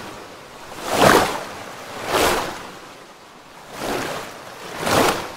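Sea waves washing in, swelling and fading four times, about a second or so apart.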